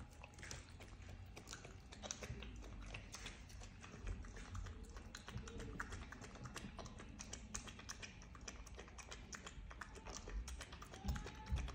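Faint, irregular small clicks and taps of kittens and a puppy moving about and chewing, over a low rumble.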